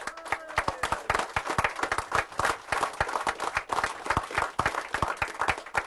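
A crowd breaking into applause all at once: dense, fast clapping from many hands.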